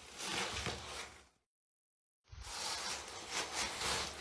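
Cat litter rustling and scraping as a cat shifts about in a litter box. The sound drops out completely for about a second partway through.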